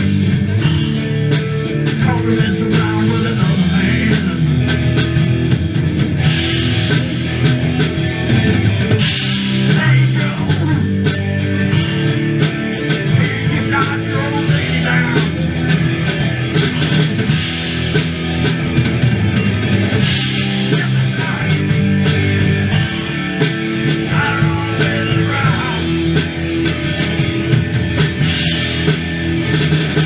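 A live rock band playing at full volume: electric guitars over a drum kit, continuous and steady.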